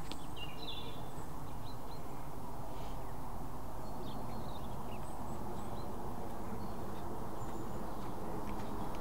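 Steady low rush of wind on the microphone, with a few short bird chirps scattered through it.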